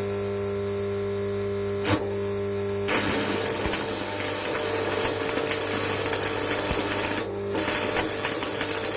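Stick-welding arc burning 6013 rods at about 100 amps: after a steady electrical hum and one sharp click about two seconds in, the arc crackles and sizzles from about three seconds in, breaks off briefly near seven seconds, then strikes again.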